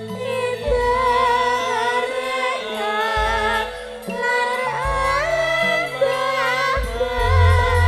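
Javanese gamelan music playing a gending, with a woman singing an ornamented, wavering melody over held low notes.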